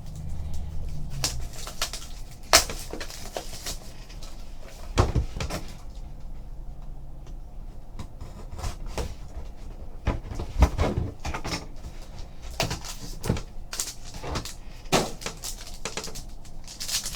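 A trading-card box and its packaging being handled and opened: scattered taps, clicks and rustles of cardboard and plastic.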